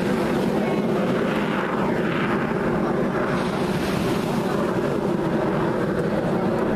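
Aermacchi MB-339 jet trainers with turbojet engines flying past in formation: a steady jet rumble, with a whine that slides down in pitch about a second in as they pass.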